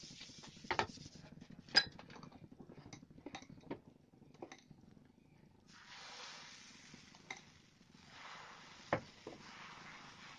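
A few light clicks and taps of kitchen utensils, then from about six seconds in a soft scraping hiss as dosa batter is spread in circles with a ladle across a nonstick tawa, with one sharper knock near nine seconds.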